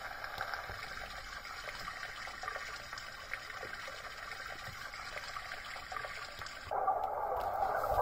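A Sony ICF-C707 Dream Machine clock radio playing one of its built-in nature-sound presets through its small speaker: a steady hiss of flowing, trickling water. Near the end it switches abruptly to a louder, duller hiss.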